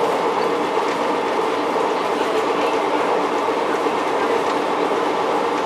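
Vintage CPH 'Tin Hare' rail motor running steadily along the line, heard from on board: an even mix of engine and wheel-on-rail noise.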